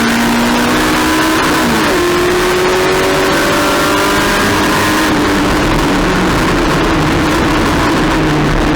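Race car engine running hard, its pitch climbing steadily, with a sudden change of note about two seconds in, like a gear change.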